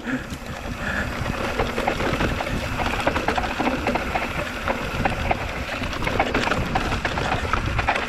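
Hardtail mountain bike ridden down a dirt trail: steady tyre noise on dirt and gravel, with many small rattles and clicks from the bike, and wind rushing on the microphone.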